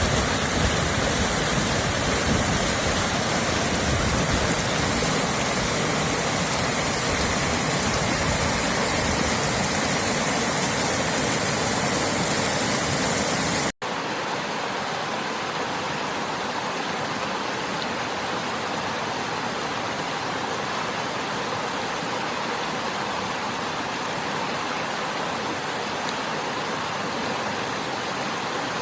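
Rushing water of a river stream and waterfall, a steady, even rush. About 14 s in it cuts abruptly to a slightly quieter stretch of water with less low rumble.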